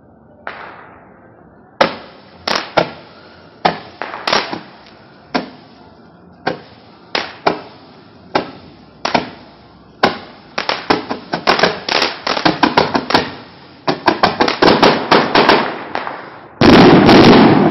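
Homemade consumer firework cake firing. A softer first shot is followed by sharp cracks about a second apart, which quicken into rapid runs of several shots a second. Near the end comes a loud, dense finale volley.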